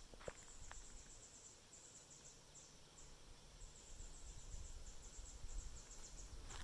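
Insects chirping faintly, a high-pitched buzzy pulsing that comes in quick repeated trains with brief breaks.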